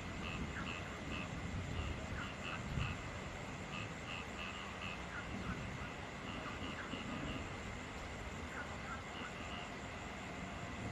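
Steady rain falling at night, with frogs calling in short repeated croaks that come in quick runs of three to five. A thin, steady high tone runs underneath.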